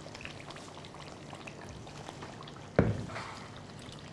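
Beef pickle in hot oil crackling faintly in a pan just off the heat, then one sharp clank about three seconds in as the metal pan and spatula knock while the pickle is tipped and scraped out into a serving bowl.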